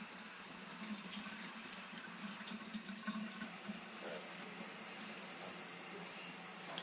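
Tap water running steadily into a sink, with a few short splashes.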